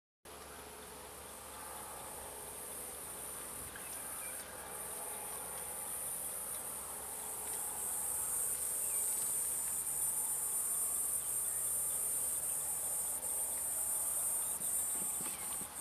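Steady, high-pitched chorus of insects chirring, growing louder over the first half and then holding.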